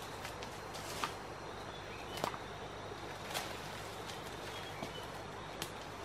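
Footsteps crunching on dry leaf litter and twigs on a forest floor: a handful of irregular, sharp crackles over a steady background hiss.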